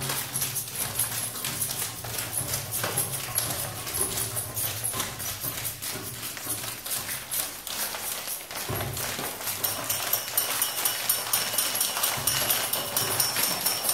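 Rapid, steady ticking and rattling, like shaken or tapped hand percussion, over a low humming drone that shifts pitch in steps.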